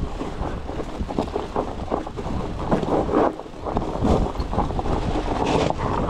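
Wind buffeting the microphone over a steady rumble, with dense irregular clattering throughout.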